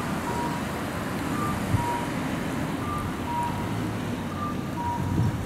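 Road traffic running past at an intersection, overlaid with a two-note electronic beep, a higher note then a lower one, that repeats about every one and a half seconds, typical of a Japanese audible pedestrian crossing signal.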